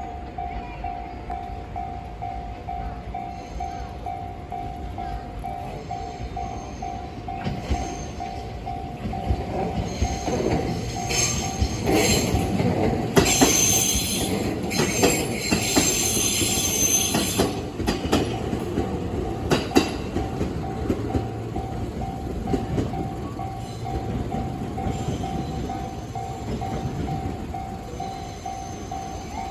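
Japanese level crossing warning bell ringing in a steady, even pulse while a train passes. The train is loudest from about ten to eighteen seconds in, with its wheels clattering over rail joints.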